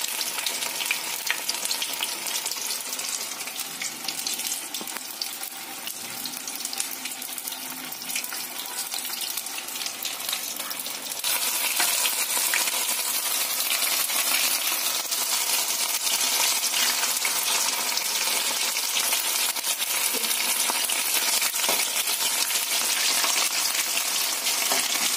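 Batter-coated fish fillets deep-frying in hot oil in a steel kadhai: a dense, crackling sizzle that gets louder about eleven seconds in.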